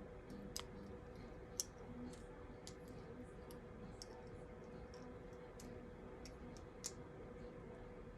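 Faint, scattered small clicks of plastic Lego pieces being handled, over a steady low hum.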